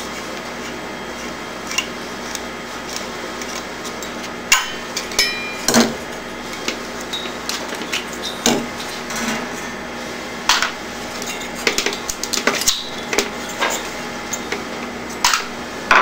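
Scattered sharp clicks and knocks of tools and metal heat-sink parts being handled as a thermoelectric cooler's heat-sink assembly is taken apart, irregular and a second or two apart, over a steady background hum.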